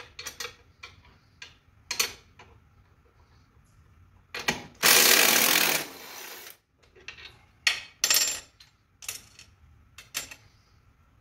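Cordless power drill-driver run once for under two seconds to spin out a fastener on a mower, with sharp metal clinks of a wrench and loose bolts before and after.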